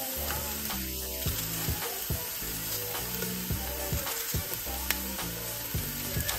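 Butter, minced garlic and onion sizzling in a frying pan, a steady hiss with scattered small pops, over background music with held low bass notes.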